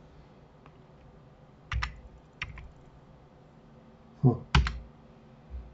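A few sharp computer keyboard key presses and mouse clicks: a pair about two seconds in, a single one shortly after, and a louder pair about four and a half seconds in.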